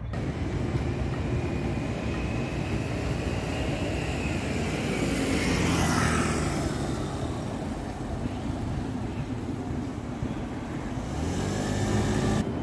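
A tram passing by, swelling to its loudest about halfway through and then fading, with a faint whine that falls slowly in pitch as it comes closer.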